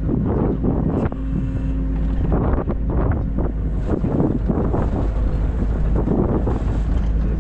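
Wind buffeting the microphone in loud, gusting rushes over a low machine rumble, with a brief steady hum about a second in.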